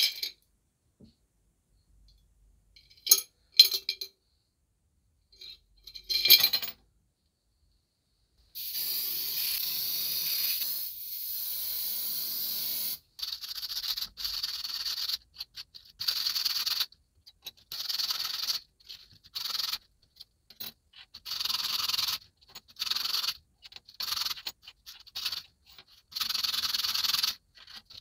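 A few sharp metallic clicks and clinks, then a steady scraping for about four seconds. After that, short back-and-forth scraping strokes repeat about once a second, the sound of hand abrasion on a small workpiece.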